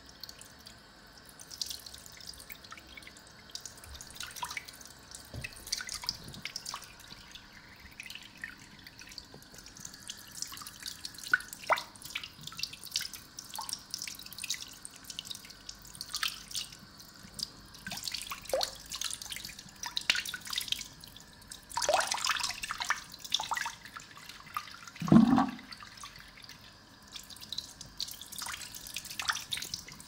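Close-miked water dripping, trickling and splashing in irregular small spills, the water sounds of an ASMR hair wash. The loudest is a single plop about 25 seconds in.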